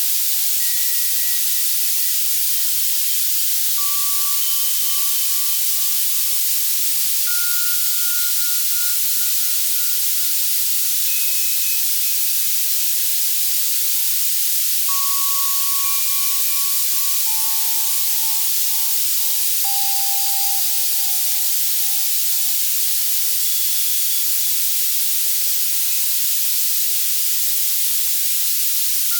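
Access Virus C synthesizer playing steady, hissing white noise for tinnitus masking, with soft single bell tones at scattered pitches sounding every few seconds, each fading away over a few seconds.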